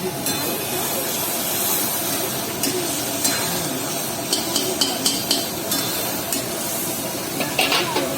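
Chicken karahi sizzling in a karahi pan: a steady frying hiss, with a run of short metal clinks and scrapes about four to five seconds in and again near the end.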